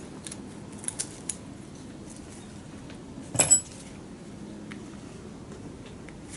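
A few light clicks, then one louder ringing metal clink about three and a half seconds in: tools or small metal parts being handled during hands-on repair work.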